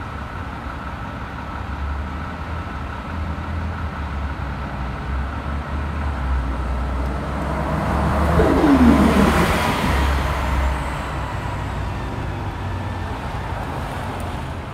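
New Flyer Xcelsior XN40 city bus with a natural-gas engine passing close by. It is loudest about eight seconds in, where a whine falls in pitch as it goes past, then fades as the bus drives away, over a steady low engine hum and street traffic.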